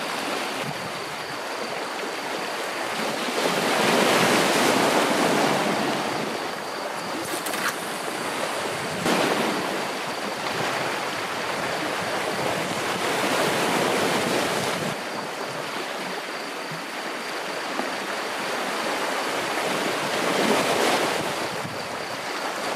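Sea waves washing against a rocky shore, swelling and falling back about every four to five seconds.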